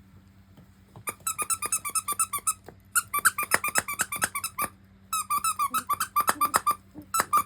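Shetland Sheepdog puppy giving three runs of rapid, high-pitched squeaky yelps, about eight a second, the kind a young puppy makes when a littermate chews on it.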